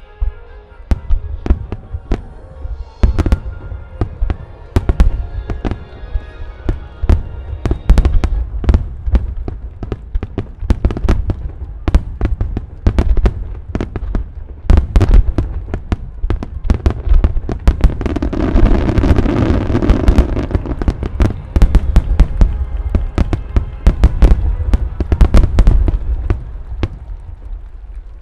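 Rapid barrage of aerial firework shells bursting: dozens of sharp booms with a deep low rumble, in dense clusters and thinning out near the end. Music from the show's loudspeakers plays faintly under the first few seconds.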